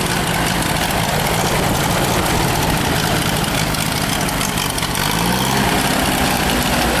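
Ford 3.1-litre 192 industrial four-cylinder gas engine running steadily after being cranked up. The owner calls it a good-running motor, though its Zenith carb could use a cleaning.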